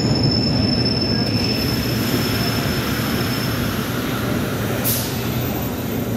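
New York City subway train running past the platform: a steady rumble of wheels on rail with a thin, high wheel squeal that fades out about three seconds in. A brief high hiss comes about five seconds in.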